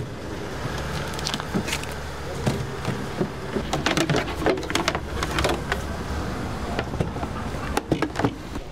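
Scattered knocks and clatter of kitchen equipment being handled: a metal tray lifted out of a plastic crate and a hob set down on a table. The knocks come thickest in the middle and again near the end, over a steady low hum.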